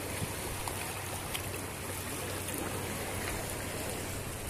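Shallow seawater lapping and trickling at the shoreline, a steady wash of water.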